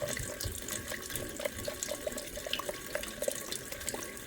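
Rain falling steadily, with many scattered drops splashing irregularly.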